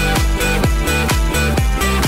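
Electronic dance music with a steady kick drum on every beat, a little over two beats a second, under sustained synth chords.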